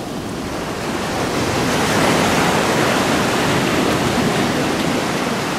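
Ocean surf breaking and washing up the beach, a rushing noise that swells over the first two seconds and then holds.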